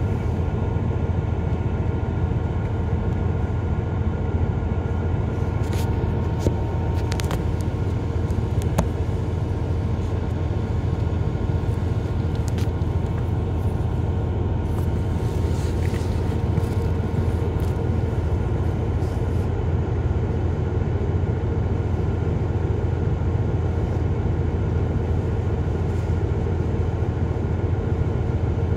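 Highway coach's diesel engine idling with a steady low rumble, heard from inside the cabin, with a few faint clicks and rattles.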